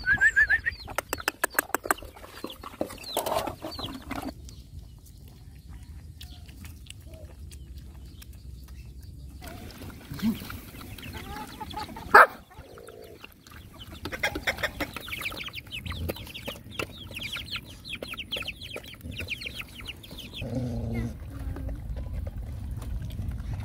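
Chickens clucking while several dogs eat from a metal bowl, with rapid chewing and lapping clicks. A single sharp knock comes about twelve seconds in.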